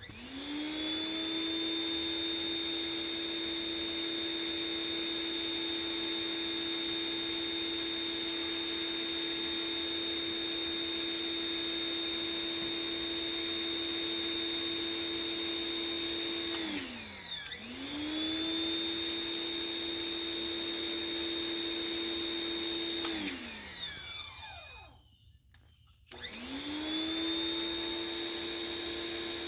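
Electric pressure washer motor and pump (Greenworks 2000 PSI) spinning up with a rising whine and running steadily. It winds down about 17 s in and starts straight back up, then winds down again about 23 s in, goes nearly quiet for a moment and spins back up near the end.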